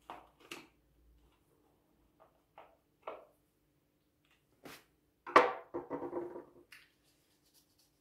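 Small clicks and scrapes of a screwdriver driving the screws of a light-switch faceplate back in against the wallpaper. About five seconds in comes a louder sharp knock, followed by a second or so of rubbing and rustling.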